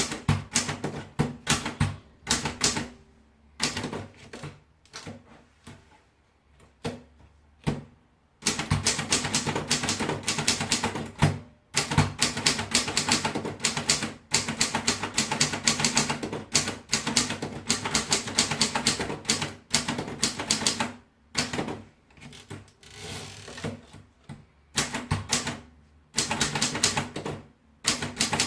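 Oliver typewriter being typed on: runs of rapid key strikes broken by short pauses, with a long fast run of typing through the middle.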